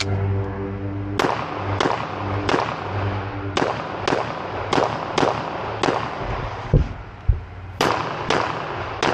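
Handgun fired in an IPSC stage run: a string of about eight sharp shots roughly half a second apart, a pause of about two seconds, then three more near the end.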